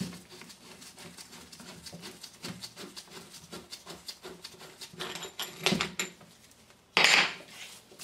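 Nitrile-gloved hands handling the metal housing of a starter motor: small irregular clicks, rubs and rustles, a few louder clicks about five seconds in, and a short louder scrape or knock near the end.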